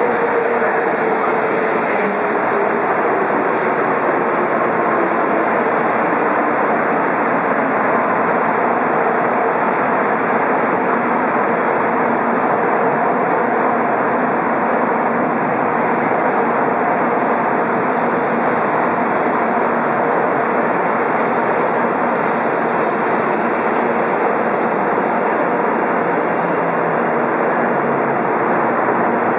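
N700 series Shinkansen train running along the platform as it arrives and slows: a steady, loud rush of wheels and running gear, with a faint whine falling in pitch over the first few seconds.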